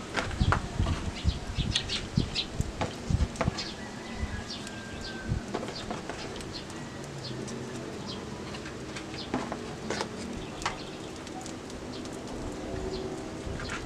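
Wood fire crackling with irregular sharp snaps, thickest in the first few seconds and thinning out after. A bird calls faintly in the background near the end.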